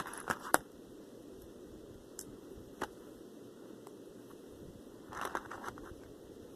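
A few sharp clicks and a short rustling patch from small parts and packaging being handled: two clicks near the start, one about three seconds in, and a cluster a little after five seconds.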